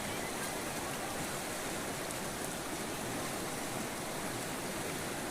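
Steady rush of river water flowing over stones, an even hiss with no breaks.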